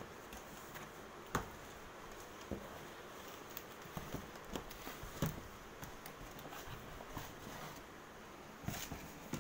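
Cardboard boxes being handled: scattered taps, knocks and scrapes as a laptop box is shifted in and lifted out of its cardboard shipping carton, with a sharper knock about a second in, another around five seconds in, and a few near the end.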